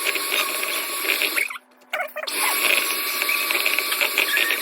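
Electric hand mixer beating brownie batter in a bowl: a steady motor whirr with scratchy rattling from the beaters. It breaks off briefly about a second and a half in, then runs on.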